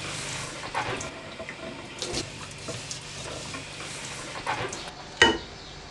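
Kitchen sounds of cooking: scattered clinks and knocks of utensils and pans over a faint steady hiss, with one louder clatter a little after five seconds in.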